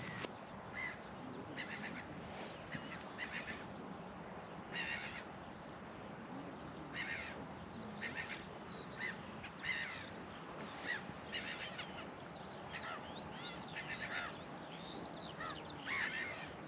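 Several birds calling and chirping, short separate calls scattered throughout, over a steady faint background hiss.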